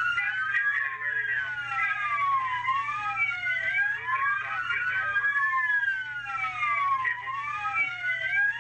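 Several police car sirens wailing at once, their pitches rising and falling out of step with one another over a low steady hum.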